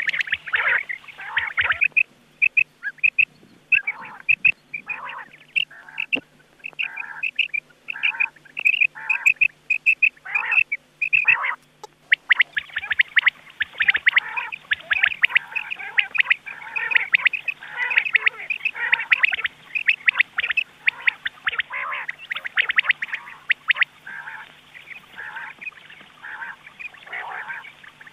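Rain quail calling from a lure recording: short, sharp notes repeated about twice a second, becoming denser and overlapping from about halfway, as if several birds call at once.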